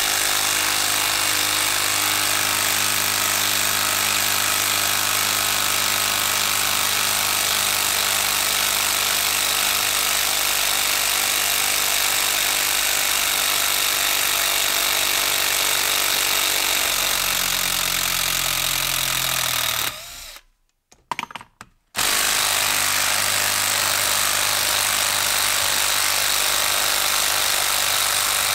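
Makita 12-volt brushed impact driver hammering a long screw into a log, running continuously at a loud steady level. About twenty seconds in, its pitch sags under load, then it stops for about two seconds with a couple of short blips of the trigger before hammering on again.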